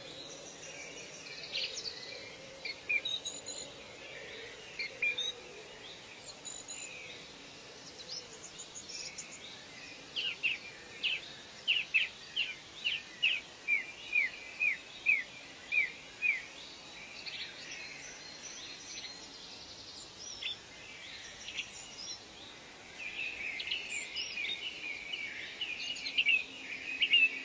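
Birds singing and calling over a steady background hiss of natural ambience. A little over a third of the way in, one bird gives a run of about a dozen short, sharp notes, roughly two a second, and the chattering gets busier near the end.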